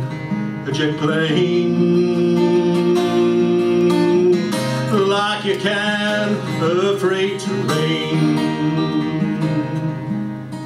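A man singing a folk song in phrases, accompanying himself on an acoustic guitar, with the guitar carrying on between the sung lines.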